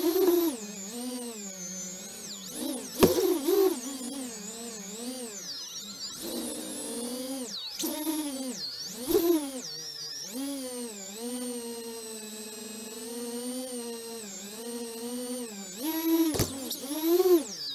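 Small FPV cinewhoop quadcopter's four iFlight XING 1408 3600kv brushless motors and propellers on a 4S battery whining, the pitch gliding up and down as the throttle changes. Two sharp knocks stand out, about three seconds in and again near the end.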